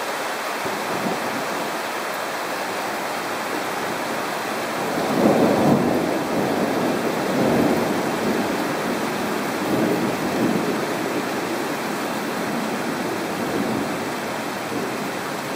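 Steady rain with rolling thunder. The thunder swells about five seconds in and rumbles on in several waves before fading near the end.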